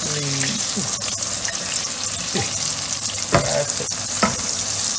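Oil sizzling steadily as cornstarch-dusted carp roe deep-fries in a wok, with a wooden utensil knocking sharply against the wok twice, about three seconds in and near the end.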